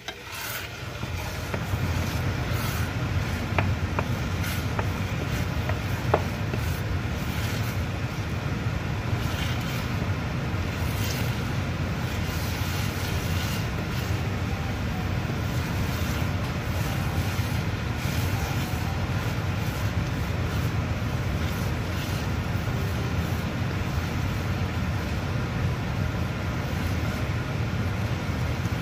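A steady low rumble that swells up in the first second or two and then holds, with a few sharp knocks and scrapes of a wooden spatula stirring thick glutinous rice in a pan.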